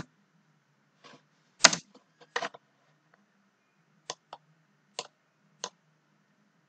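Scattered clicks at a computer, about ten short, irregularly spaced clicks: a close cluster about two seconds in, then single clicks, over a faint low hum.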